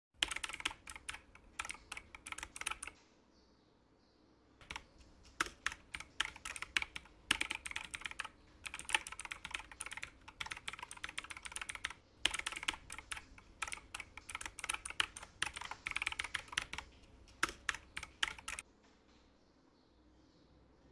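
Typing on a computer keyboard: runs of rapid key clicks in bursts separated by short pauses, stopping a couple of seconds before the end.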